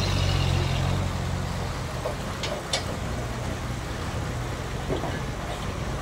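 Toyota forklift engine running steadily, a little louder in the first second, with two short sharp clicks about two and a half seconds in.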